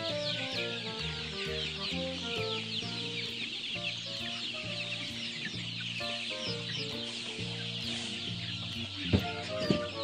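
A large flock of young chicks peeping, many short falling peeps overlapping without pause. Two sharp thumps near the end are the loudest sounds, over background music.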